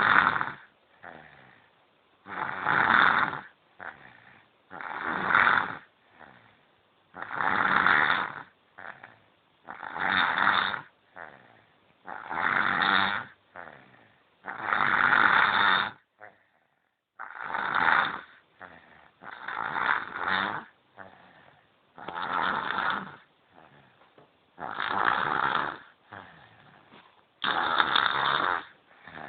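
A sleeping baby snoring: a loud snore on each breath, about a dozen in a steady rhythm roughly every two and a half seconds, with a softer breath sound between them.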